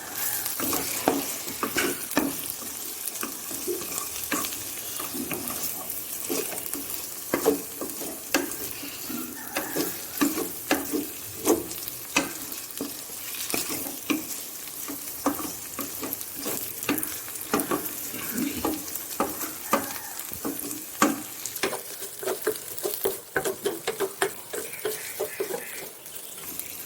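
Grated pumpkin frying in ghee in a pan: a steady sizzle, with a spatula stirring it and knocking and scraping against the pan again and again.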